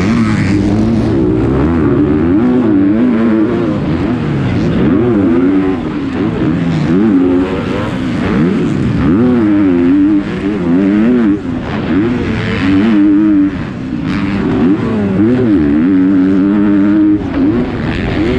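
Onboard sound of a 250-class motocross bike engine at race pace, its pitch rising and falling again and again as the throttle is worked and the gears change, over steady rushing noise.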